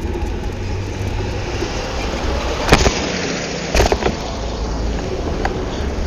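Steady low rumble of wind and road noise on a camera microphone carried on a moving bicycle, with two sharp knocks about a second apart near the middle.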